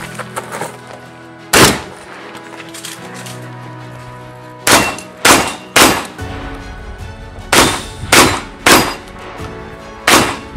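Shotgun shots in quick strings: a single shot, then two strings of three about half a second apart, and one more shot near the end, over background music.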